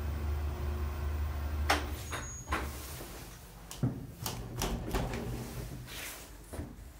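KALEA A4 screw-driven platform lift's drive hums low and steady as the platform descends, then stops about two and a half seconds in. A scatter of clicks and knocks follows as the landing door is unlatched and pushed open.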